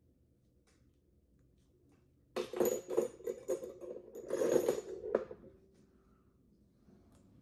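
Small metal instruments clattering and clinking for about three seconds, starting a couple of seconds in.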